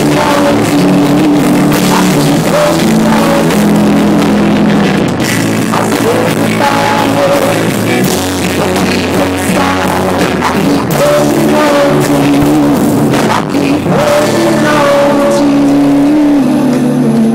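Live rock band playing loudly, with electric guitars, bass and drums, heard from close to a PA speaker.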